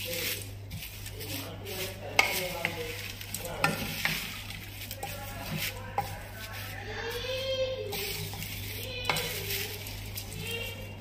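Wooden spoon stirring dry flattened rice (poha) with grated coconut and jaggery in a stainless steel kadai: a continuous rustle and scrape of the flakes, with a few sharp knocks of the spoon against the steel pan.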